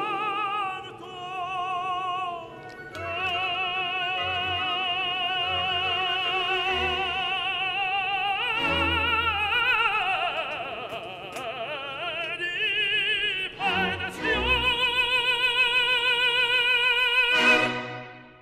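Operatic singing with a strong vibrato on long held notes, over musical accompaniment. The voice slides down through a run of notes about halfway through, and the music cuts off and fades out near the end.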